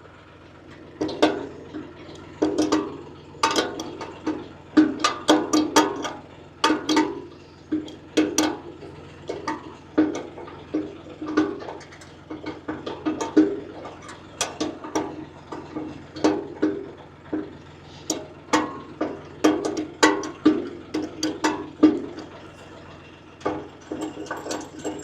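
Irregular metallic clanking and knocking, many separate knocks spread unevenly throughout, as of steel hitch parts and pins being handled and fitted, over a faint steady low hum.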